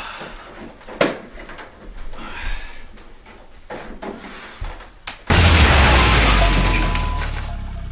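Light clicks and knocks of metal wall-mount brackets and bolts being handled and fitted. About five seconds in, a sudden loud rushing noise starts and fades slowly over the last few seconds.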